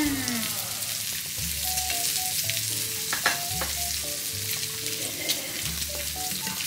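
Samgyeopsal (pork belly) sizzling and crackling on a tabletop grill, with a few sharp clicks, over background music with a repeating low beat and held melody notes.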